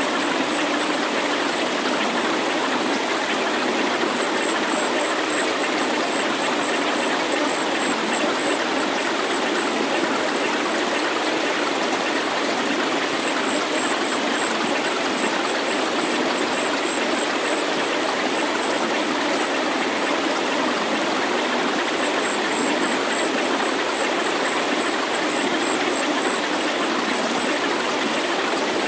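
Steady rushing noise, like a stream or hiss, with no deep bass, from a resonant subliminal healing sound track. A faint high-pitched tone pulses quickly above it in stretches.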